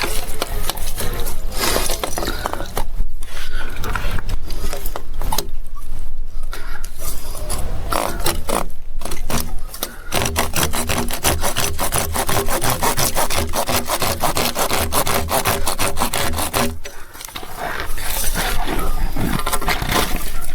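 Saw cutting through PVC irrigation pipe in steady back-and-forth strokes, pausing briefly about ten seconds in and again near the end.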